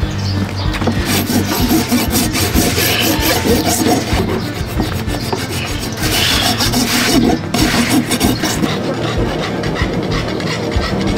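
Farrier's rasp filing a horse's hoof wall in repeated rough rubbing strokes; the strokes ease off in the last couple of seconds.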